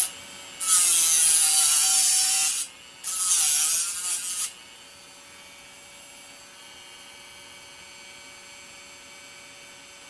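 Rotary tool with a cutoff wheel, running at about 15,000 RPM, grinding into a steel pick blank in two spells of about two seconds and a second and a half. After that the wheel spins free with a steady motor hum.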